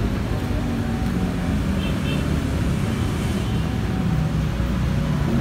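Street traffic: the engines of road vehicles running and passing in a steady, loud din.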